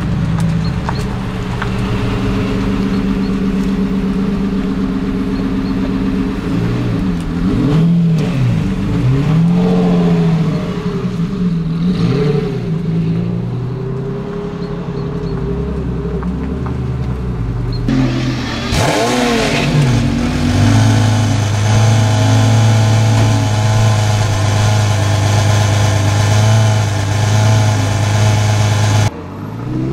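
Lamborghini Murciélago V12 engine idling with several blips of the throttle. After a cut, a second Murciélago V12 with an aftermarket Fi exhaust gives one sharp rev, then holds a steady high note until it stops abruptly near the end.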